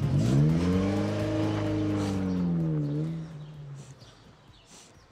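A car accelerating away: its engine rises in pitch, then slowly falls and fades out after about four seconds.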